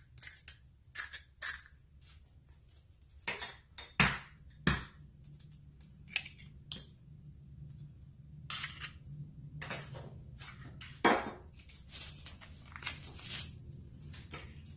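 Eggs being cracked into a mixing bowl: a series of sharp taps, clicks and eggshell crunches as shells are knocked and pulled apart, the loudest pair of knocks about four seconds in and another sharp one about eleven seconds in.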